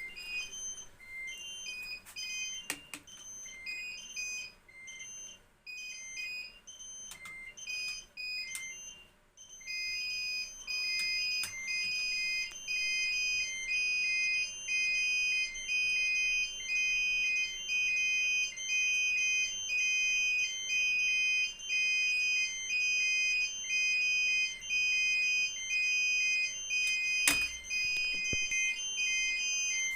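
Fire alarm system's electronic beeper signalling that its smoke detectors are in alarm. Irregular high beeps come first, then from about ten seconds in a louder, steady two-tone beep repeats about once a second. There is a single click near the end.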